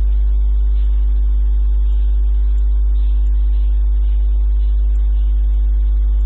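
Steady electrical mains hum on the recording: a low buzz with a ladder of evenly spaced overtones, unchanging throughout.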